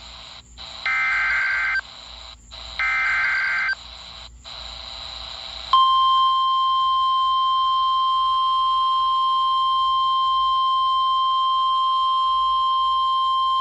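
NOAA Weather Radio alert heard through a RadioShack 12-254 weather radio. First come two one-second bursts of SAME digital header data, a buzzy two-tone squawk. Then, about six seconds in, the steady 1050 Hz warning alarm tone starts and holds, over faint radio hiss. Together they announce an incoming Severe Thunderstorm Warning.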